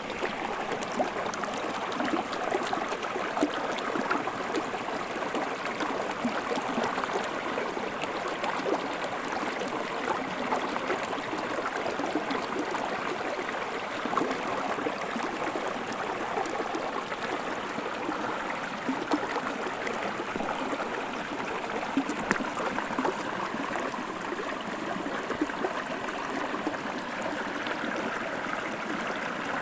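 Small rocky stream running, a steady rush of flowing water.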